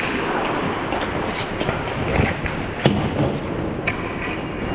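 Ice hockey play: skates scraping on the ice, with sharp knocks of sticks and puck, the loudest about three seconds in. A faint steady high tone joins near the end.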